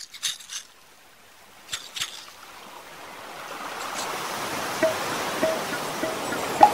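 A wash of water or surf sound that fades in and swells, after a few sharp clicks at the start. From about two-thirds of the way in, a short note repeats roughly every 0.6 seconds over it as the song's intro begins.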